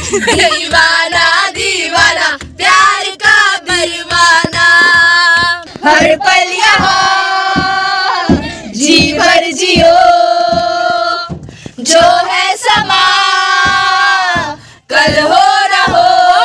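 A group of young people singing loudly together in an antakshari song game, with hand claps keeping a beat.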